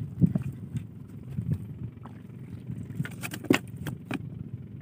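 Scattered clicks and knocks as a fishing net is handled in a small boat, clustered about three seconds in, over a steady low rumble.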